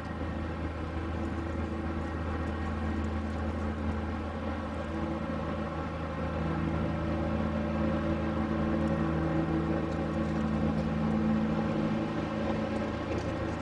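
A motor or engine running steadily with a low hum and a few held tones; a slightly higher tone joins about six seconds in.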